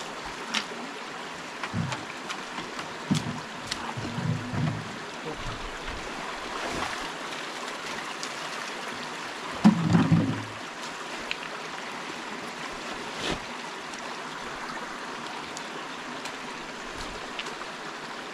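River water flowing steadily, with scattered knocks and thumps over it; the loudest thump comes about ten seconds in.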